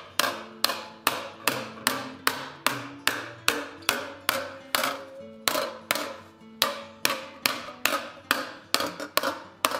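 Steady hand-hammer blows, about two and a half a second, on a hot silicon bronze sheet held over a steel ball stake: the sheet is being hot raised into a dome.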